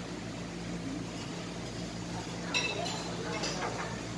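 Tableware clinking at a meal over a steady low room hum: one sharp, ringing clink about two and a half seconds in, and a lighter one about a second later.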